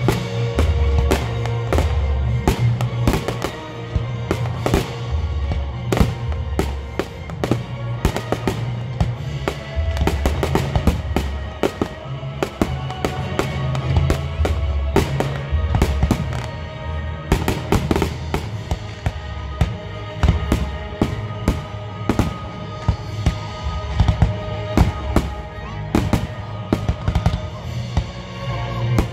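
A fireworks display going off: many sharp bangs and crackles in quick succession from aerial shells and ground effects, heard over loud music with a heavy, steady bass line.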